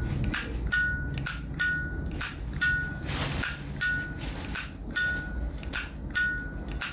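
Zippo lighter in high-polish chrome flicked open and snapped shut over and over: sharp clicks about twice a second, each with a short bright metallic ring from the lid and hinge, and a brief scratchy hiss about three seconds in.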